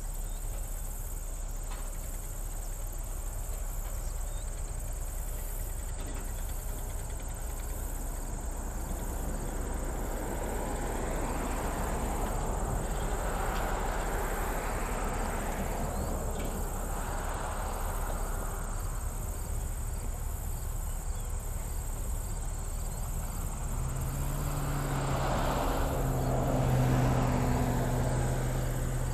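Steady, high-pitched chorus of insects. A broader rushing sound swells twice, once through the middle and once near the end, and a low steady hum comes in about three-quarters of the way through.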